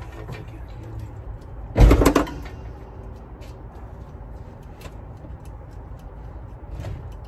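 Metal hardware being handled: one loud metallic clank with a short ringing tail about two seconds in, then light clicks and rattles over a steady low background rumble.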